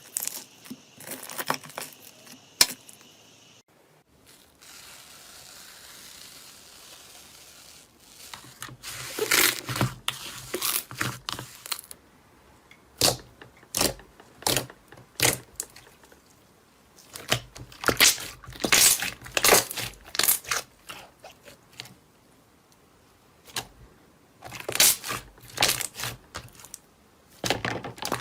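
Crisp crackling and crunching in bursts of several quick strokes, with short quiet gaps between bursts, as a crunchy material is crushed and squeezed. A quieter stretch with only a faint hiss comes a few seconds in.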